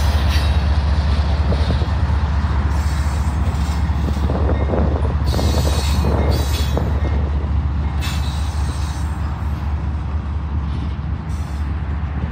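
Union Pacific freight train's cars rolling past at speed: a heavy, continuous rumble of steel wheels on rail, with brief high-pitched bursts from the wheels every two to three seconds. It eases slightly in level toward the end.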